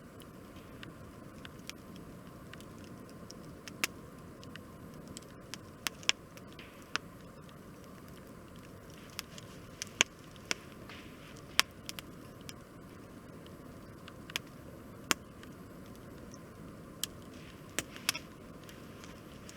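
Wood fire crackling: a dozen or so sharp pops at irregular intervals over a steady low rush of burning.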